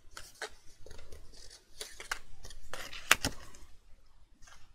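Die-cut cardstock pieces being picked up, slid and pressed into place by hand: irregular rustling and scraping of paper, with a sharp tap about three seconds in.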